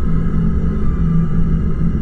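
Eerie background music: a steady, low, rumbling drone with a faint higher tone held above it.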